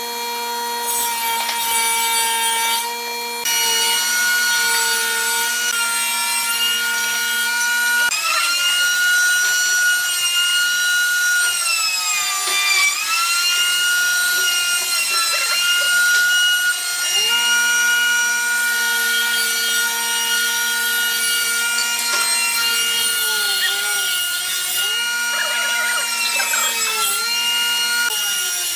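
A machine motor running with a steady whine of several tones at once. Its pitch sags briefly and recovers several times, as a motor does when it takes a load.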